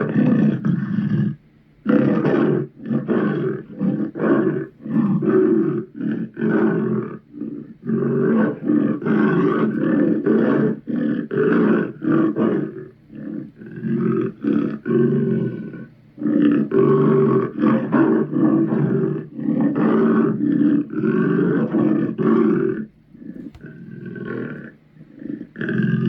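Deep monster growls and roars voiced for the Muppet ogre Sweetums, coming in a rapid string of short bursts with brief gaps, quieter for a couple of seconds near the end.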